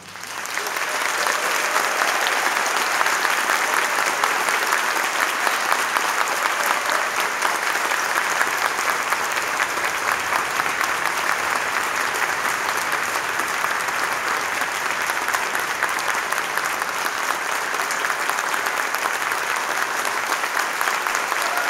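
Audience applause, swelling up within the first second and then holding steady.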